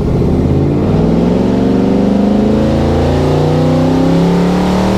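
Supercharged, cammed V8 of a Camaro ZL1 at full-throttle acceleration, its exhaust dumped through wide-open electronic diverters, essentially open headers with no muffler restriction. The loud engine note comes in suddenly and rises steadily in pitch through one long pull, heard from inside the cabin.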